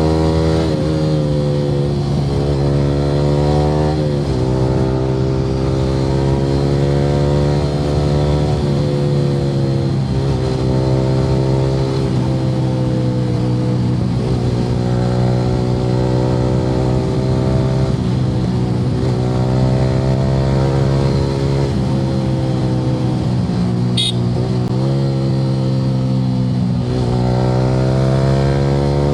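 Yamaha R15 V3's 155 cc single-cylinder engine through an Akrapovic R9 exhaust, pulling hard on a ride: the revs climb and drop back at each gear change, about half a dozen times. A short sharp click about 24 seconds in.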